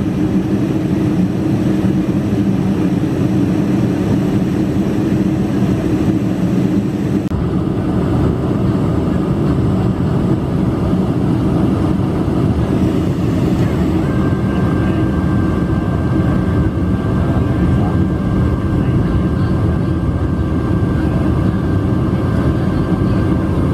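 Steady engine and airflow noise inside the cabin of a Boeing 747-400 in flight. Faint steady whining tones join it about 14 seconds in.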